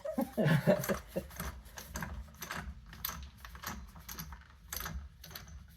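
Irregular light metallic clicks and taps from hand work on a car wheel being mounted, with lug nuts and tools handled on the wheel studs.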